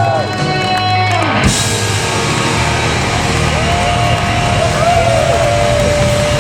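Live rock band playing the close of a song: a held chord with a falling sweep about a second and a half in, then a melody line with repeated bending notes over the sustained band.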